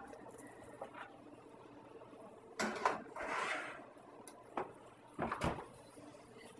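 Kitchen handling sounds as the filled baking tins go into the oven: a few knocks and clunks of metal pans and the oven door. The loudest comes about two and a half seconds in, with a short scraping tail, and there are two more near the end.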